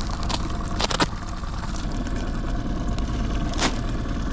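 Boat outboard motor running steadily at a slow idle, with a few sharp clicks and crackles from plastic bait packaging being handled, a cluster about a second in and another late on.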